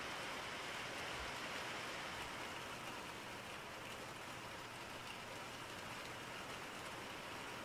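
A steady, even hiss of noise, with no distinct events.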